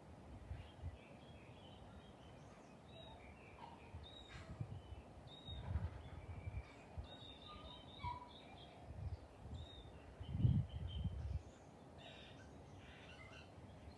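Birds chirping: many short, scattered high calls over a low outdoor background, with a few low rumbles, the loudest about ten and a half seconds in.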